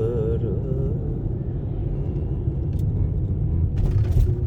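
Car road noise heard from inside the cabin: a steady low rumble of tyres and engine while driving, with a brief rushing noise about four seconds in.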